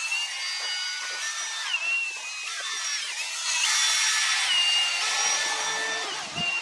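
Cordless drill spinning a rotary chimney-sweep brush on rods down a metal chimney flue. The motor whine steps down and back up in pitch a few times over a rough scraping hiss, and cuts off abruptly at the end.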